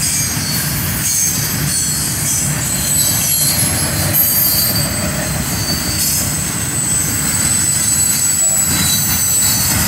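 Double-stack container train's well cars rolling past close by: a steady low rumble of steel wheels on rail, with high-pitched wheel squeal coming and going over it.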